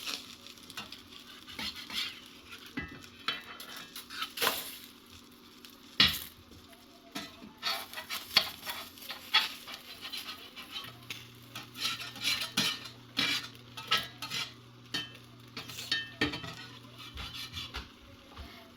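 Spatula scraping and clacking against a Lodge 8SK cast iron skillet as eggs are slid and turned over, with frying eggs sizzling underneath. The strokes come irregularly, with the sharpest clack about six seconds in.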